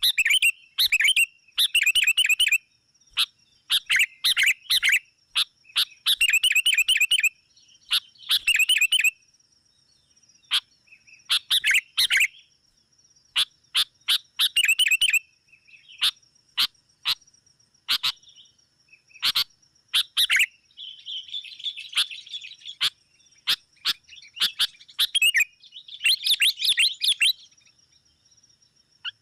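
Sooty-headed bulbuls calling agitatedly in a rival-challenging chatter used as a lure call: bursts of rapid, repeated notes separated by short pauses, turning to harsher scolding chatter about two-thirds of the way in and again near the end. A faint steady high whine runs underneath.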